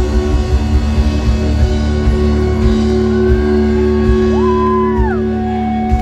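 Live rock band playing loud over a festival PA, heard from within the crowd: sustained guitar chords over drum hits, with a high note sliding up about four seconds in, held for a moment, then dropping away.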